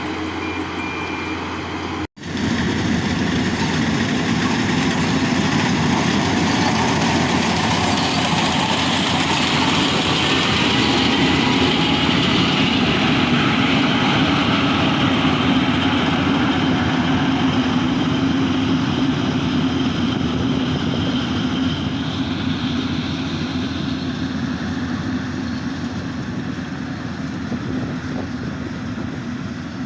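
Yanmar AW82V rice combine harvester running steadily. The sound cuts out for an instant about two seconds in, then comes back louder.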